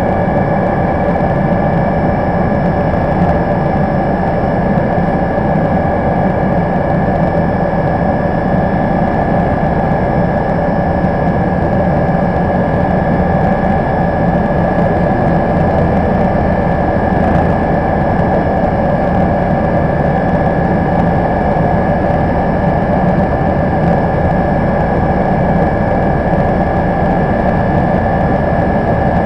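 Cabin noise of a BO 105 helicopter in flight: the twin turboshaft engines' steady high whine over a constant rush of rotor and airflow noise, unchanging throughout.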